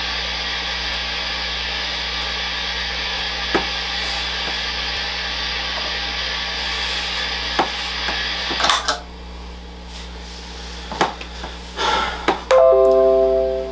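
A steady hiss for about nine seconds with a few faint clicks, then it drops away. A few knocks follow, and near the end a chord of several held notes rings out.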